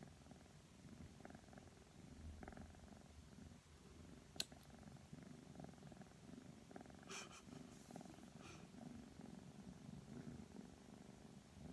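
Four-month-old Ragdoll kitten purring steadily and quietly while held, with a few sharp snips of a pet nail clipper cutting its claws. The loudest snip comes about four seconds in.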